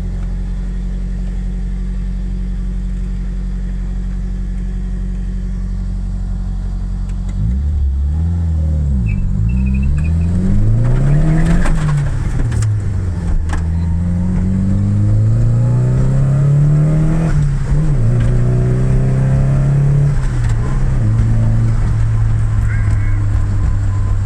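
Nissan 240SX's turbocharged SR20 four-cylinder engine running steadily, then from about seven seconds in its revs rise and fall several times before settling to a steady note near the end.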